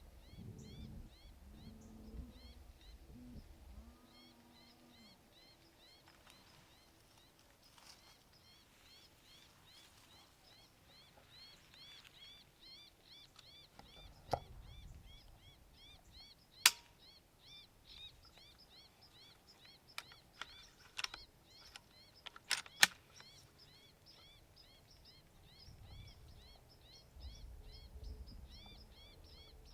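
Faint cottontail rabbit distress cries from an electronic predator caller, repeating evenly at about three short cries a second. A few sharp clicks come through in the middle, the loudest about 17 and 23 seconds in.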